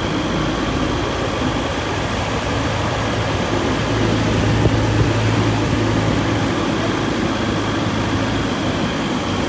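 Steady cabin noise of a car driving slowly uphill: engine and tyre rumble with a low hum that grows stronger about halfway through.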